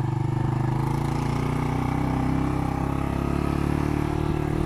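Motorcycle engine running at a steady pace while the bike rides along, heard from on board.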